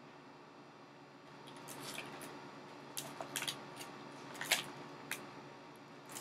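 Toy packaging being handled: scattered plastic crinkles and small clicks, starting after a quiet second or so.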